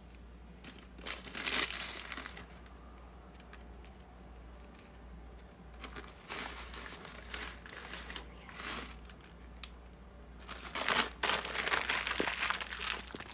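Plastic candy wrapper crinkling as it is handled, in several short bursts with a longer, louder one near the end.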